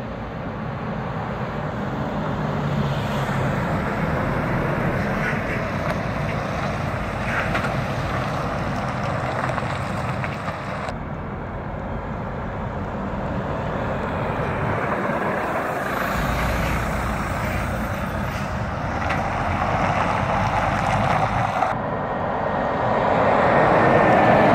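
Heavy diesel trucks pulling away and driving past one after another. The sound changes abruptly twice between takes, and it is loudest near the end as a Scania tractor unit passes close.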